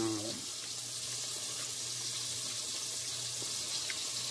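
Fish frying in hot oil: a steady sizzle, with a low steady hum underneath.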